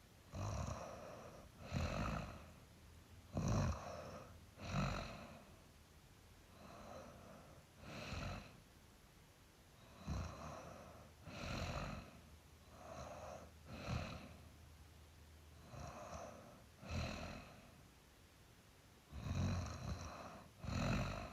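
A sleeper snoring: short snores repeating unevenly every one to two seconds, with quiet gaps between breaths.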